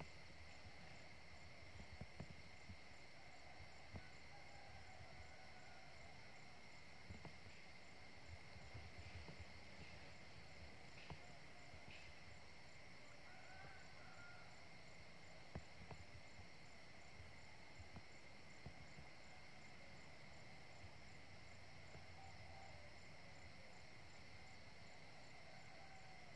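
Near silence with faint steady insect trilling: a continuous high note and a regular pulsed chirp above it. A few faint clicks.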